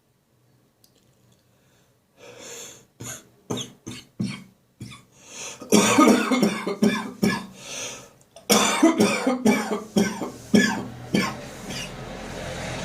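A post-bronchitis cough: a series of short, sharp, dry coughs starts about two seconds in, then turns into a heavier, rapid coughing fit from about six seconds as the person works to bring up leftover phlegm.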